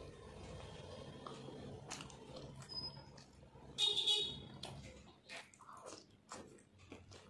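Close-miked chewing and wet mouth sounds of a person eating mutton curry by hand, with quick clicks of lips and fingers in the second half. About four seconds in, a brief loud high-pitched tone sounds for about half a second. A low hum under the first part stops about five seconds in.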